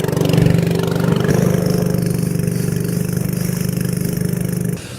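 Boat engine running steadily at a constant pitch, loud and close, until it cuts off abruptly near the end.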